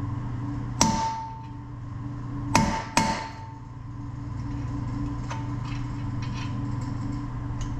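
Hammer driving a punch against the rotor's speed nuts to break them off the wheel studs. There is one sharp metal strike about a second in, two more in quick succession around three seconds in, and a fainter tap past the middle, each with a brief ring. A steady low hum runs underneath.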